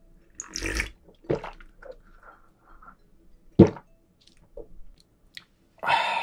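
Close-miked sips and gulps as a shot of soju is drunk and swallowed, with the loudest gulp a little past halfway. Near the end comes a long breathy exhale, an 'ah' after the drink.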